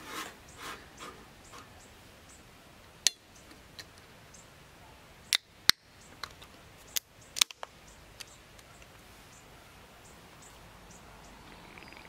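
An aluminium beer can being opened by hand: a cluster of sharp clicks and cracks from the pull tab, the loudest a single crack about halfway through, then a few lighter clicks.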